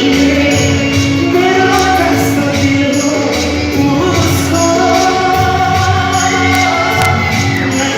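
Live band music with a singer holding long, gently bending notes over a steady bass line and drum beat.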